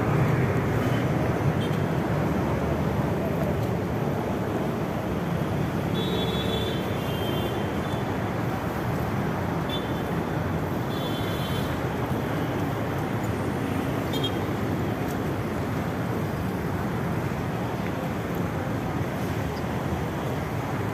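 Steady road traffic noise from cars and motorbikes on the roadway below a pedestrian footbridge, a continuous rush of engines and tyres.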